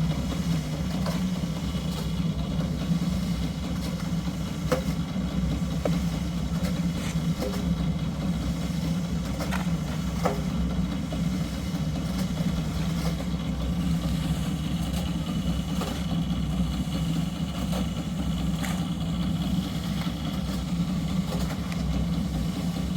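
An engine running steadily at idle: a constant low drone, with a few faint clicks over it.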